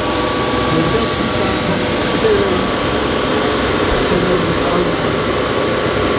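Audi 2.5-litre turbocharged five-cylinder engine idling steadily, heard close at its oval exhaust tip, with crowd chatter behind.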